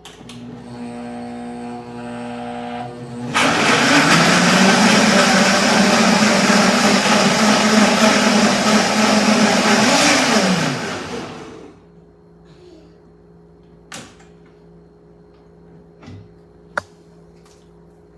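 Countertop blender puréeing peppers, onions and crayfish with water. It hums on a low speed for about three seconds, then switches to a much louder high speed for about seven seconds, and winds down with a falling pitch to a stop. A few light clicks follow.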